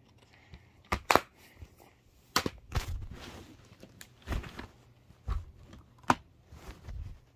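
Handling noise: a string of sharp plastic clicks and knocks, about eight spread over several seconds, as a plastic Blu-ray case is handled and closed.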